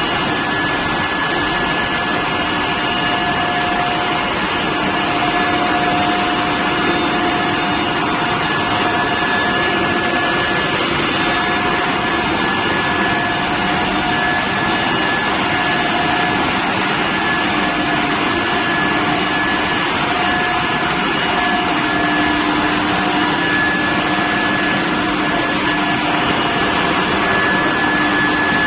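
Steel billet induction heating furnace running: a steady, loud machine noise with a constant high whine, and lower hums that come and go.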